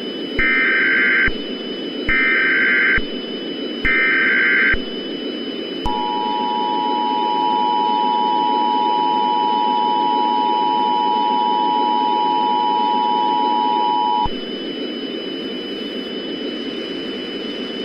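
Emergency Alert System signal opening a civil danger warning: three bursts of SAME header data tones, each a buzzy screech about a second long, then the two-tone EAS attention signal held for about eight seconds. A steady hiss of radio static runs underneath.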